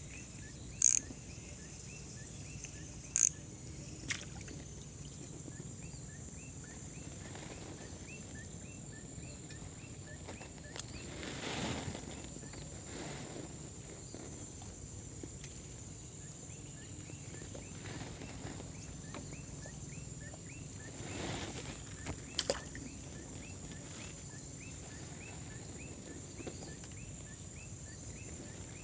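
Steady high insect drone with faint repeated chirps, broken by a few sharp clicks: two about one and three seconds in, a smaller one just after, and another about twenty-two seconds in. Two brief soft swells of rustling noise come around the middle.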